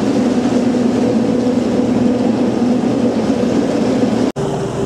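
An Atlanta 24 cruiser's engine running at a steady speed, a continuous drone inside a brick canal tunnel. Near the end it breaks off for an instant and comes back at a slightly lower pitch.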